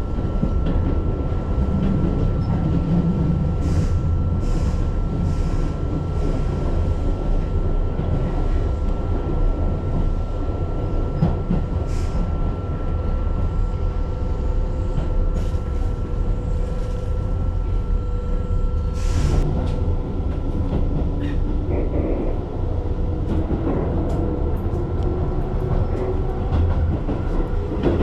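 Keihan electric commuter train running, heard from inside the carriage: a steady low rumble of wheels on rail with a thin steady whine, a few sharp rail clicks, and a slowly rising whine in the last third.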